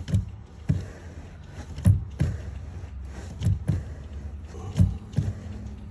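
Brake pedal of a 2016 Infiniti QX50 being pumped by foot, knocking in close pairs about every second and a half as it is pushed down and let back up. The pumping pushes the caliper pistons back out against the new rear brake pads until the pedal catches pressure and firms up.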